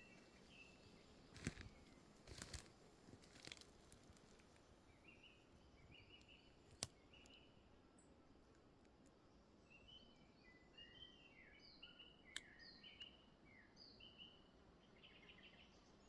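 Faint forest ambience with small birds chirping in short, high notes, busiest in the second half. A few dull crunches or knocks sound in the first few seconds, and two sharp clicks come later.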